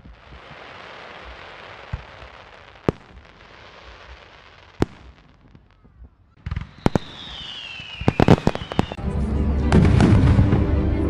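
Fireworks: a steady hiss with single sharp bangs every second or two, then a cluster of bangs and a falling whistle about seven seconds in. Music comes in about nine seconds in.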